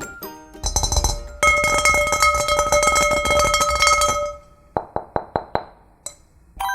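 Added music-style sound effects: a steady ringing chime with rapid ticking underneath for about three seconds, then five sharp clicks in quick succession.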